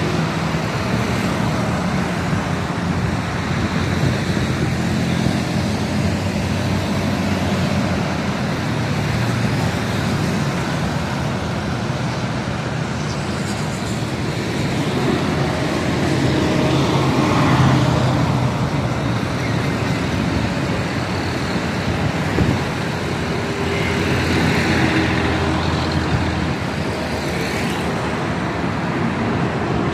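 Busy road traffic: motorcycles, cars and auto-rickshaws passing close by. A steady engine hum swells as vehicles go past, loudest about seventeen seconds in and again near twenty-five seconds.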